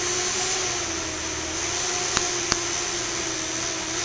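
Small electric motors of a fischertechnik monorail spinning its two propellers, a steady whir with a slightly wavering hum, with two faint clicks a little after two seconds in.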